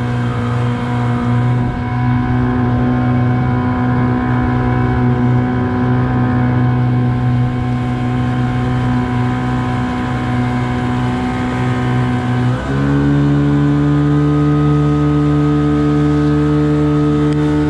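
Boat's outboard motor running steadily under way, then speeding up with its pitch stepping higher about thirteen seconds in.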